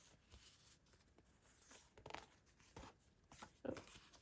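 Faint rustling of paper sticker sheets being handled and flipped through, with a few soft brushes and taps in the second half.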